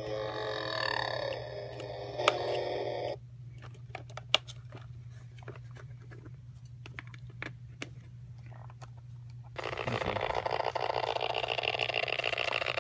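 Animated Christmas figure powered by a 6-volt adapter glitching: its tinny sound cuts out suddenly about three seconds in, leaving a few clicks over a steady hum, and about ten seconds in it starts up again with a dense, buzzing whir. The cutting out is typical of the glitches the Jimmy 6-volt adapter causes.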